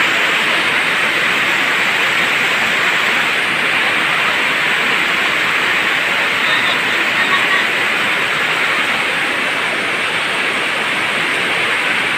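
Heavy rain pouring down steadily onto a flooded street, a loud even hiss.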